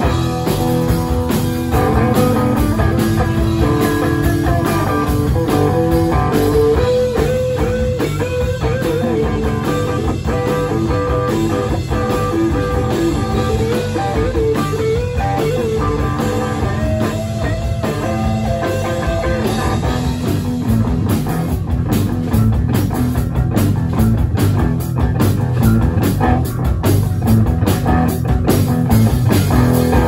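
Rock band playing: guitar lines over a drum kit and bass, the drums growing busier about twenty seconds in.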